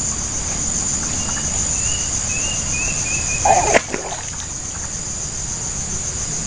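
A hooked baung catfish splashing at the surface near the bank, with one loud splash about three and a half seconds in. A steady high insect chorus runs underneath.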